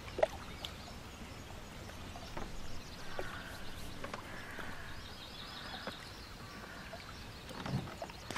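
Quiet outdoor ambience with faint birds chirping now and then.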